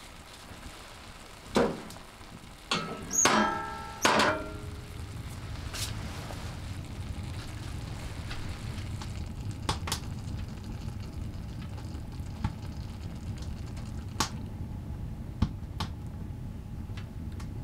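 Food frying in a skillet on a wood-burning tent stove: a steady low sizzle with scattered small crackles. In the first few seconds there are several sharp metal clanks that ring on.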